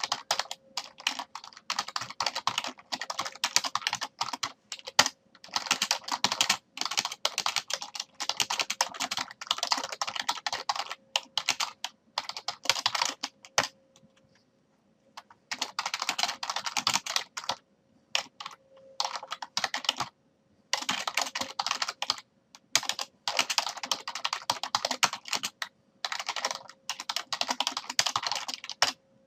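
Typing on a computer keyboard: fast runs of key clicks with short pauses between them, the longest pause about halfway through. A faint steady hum sits underneath.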